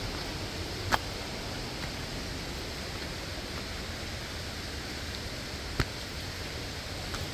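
Steady rushing of a waterfall, with two short sharp clicks, one about a second in and one near six seconds in.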